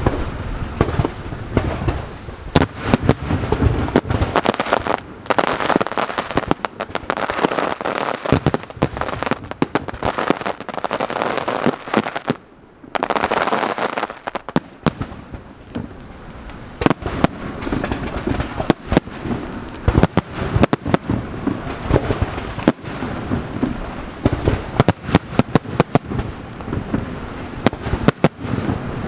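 Fireworks display: a rapid, irregular run of sharp shell bursts and bangs over stretches of dense crackling, with a brief lull about twelve seconds in.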